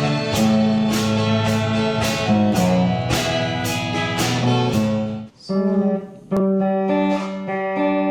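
Guitar music: a strummed guitar playing chords on a steady beat, which drops out for about a second some five seconds in and then carries on.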